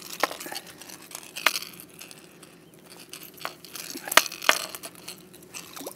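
Small splashes and water slapping at a boat's side as a striped bass is held in the water by the jaw, with several sharp ticks, the loudest about four seconds in.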